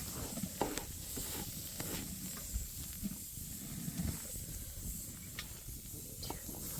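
Steady sizzling hiss with scattered faint clicks and knocks.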